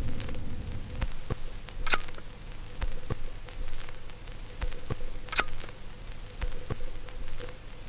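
Irregular soft clicks and ticks over a faint steady hum, with two louder, sharper clicks about three and a half seconds apart.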